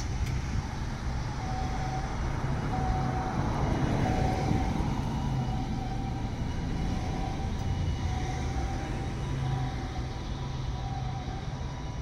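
Japanese ambulance's two-tone siren (pii-poo) repeating its high-low cycle about once every second and a bit, heard over steady road traffic. A vehicle passes loudly about four seconds in.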